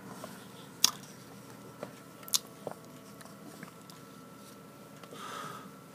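A few faint, sharp computer mouse clicks, four in the first three seconds, over a faint steady electrical hum.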